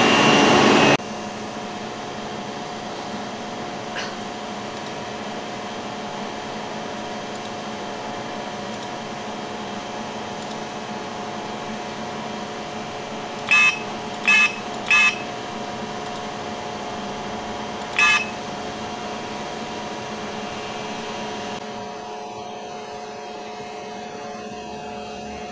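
Steady electrical hum of shop equipment, broken about halfway through by three quick high electronic beeps and a single beep a few seconds later. A louder noise cuts off abruptly about a second in.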